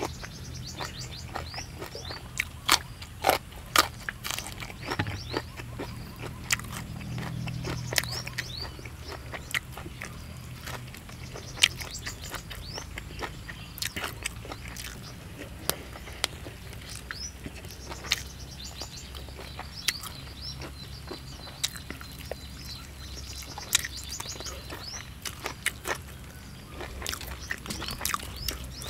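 Close-up eating sounds: sharp, irregular crunches and crackles as crispy-skinned roasted field rat is torn apart by hand and chewed. Birds chirp in the background.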